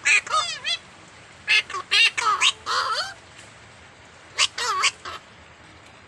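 Blue-naped and racket-tailed parrots calling in a duet: harsh, rapid squawks that sweep up and down in pitch, in three bursts, at the start, around two to three seconds in, and again near five seconds.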